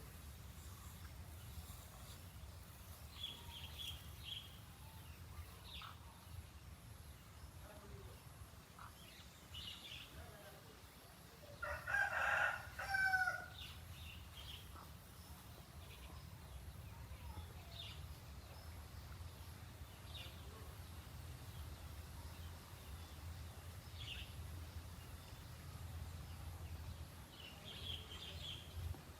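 A rooster crows once near the middle, a call of about a second and a half. Faint high chirps of small birds are scattered around it, over a steady low rumble.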